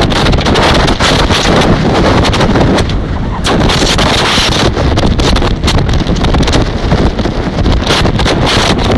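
Loud wind buffeting the microphone on a speedboat running at speed, a continuous rushing roar broken by many short buffets, with the boat's rush over the water mixed in beneath.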